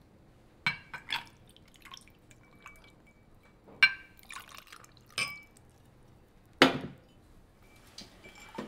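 Whisky poured from a bottle over ice into two glass tumblers, with a series of glass clinks and knocks as the glasses, ice and bottle are handled on the bar. A louder knock comes about two-thirds through.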